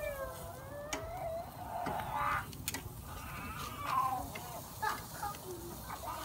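An animal calling in several drawn-out, gliding cries, with a few light metal clicks of tongs on a charcoal grill grate as the pork is turned.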